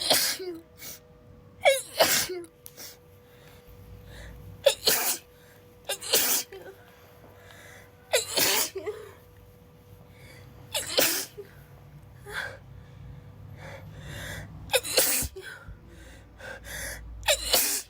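A young woman in a sneezing fit she can't stop: about eight sharp sneezes, one every two to three seconds, with quick breaths drawn in between.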